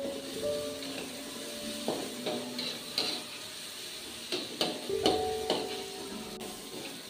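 Metal spatula scraping and clinking against an aluminium wok as spice paste and bay leaves are stir-fried in oil, over a faint sizzle. The strikes come irregularly from about two seconds in, the loudest around five seconds in.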